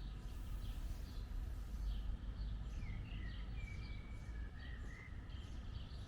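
Small birds chirping and calling, short thin chirps and a few brief whistled glides, over a steady low rumble of outdoor background noise.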